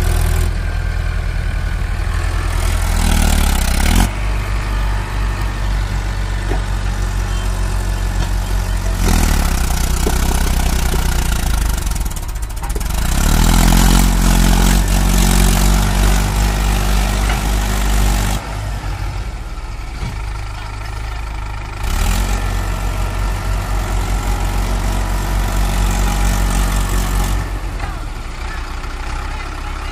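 Mahindra Arjun Ultra-1 555 tractor's diesel engine labouring under load as it drags a loaded trailer out of mud, revving up and easing off several times.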